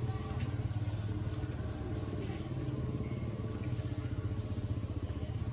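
A small engine running steadily at idle: a low rumble with a fast, even throb.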